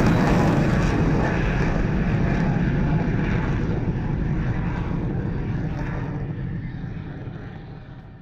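Jet aircraft engine rumble receding, fading steadily over several seconds until it is faint.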